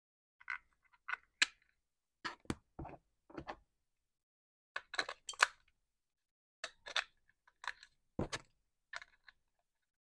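Sharp plastic clicks and knocks in irregular clusters from a toy steering-wheel remote control's battery compartment: the cover is taken off, batteries are pressed into place and the cover is clicked back on.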